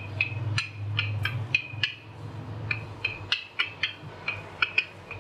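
Wooden rolling pin rolling out paratha dough on a counter: a low rolling rumble for the first few seconds, with many short, high clicks or squeaks at uneven spacing throughout.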